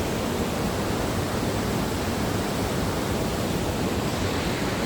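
Waterfall rushing steadily, running high with snowmelt and recent rain.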